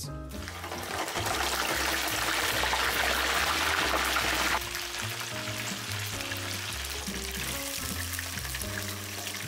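Raw chicken wings frying in hot canola oil in a deep fryer, a loud dense sizzle and bubbling as they go into the oil. It drops abruptly to a much fainter sizzle about four and a half seconds in, with background music throughout.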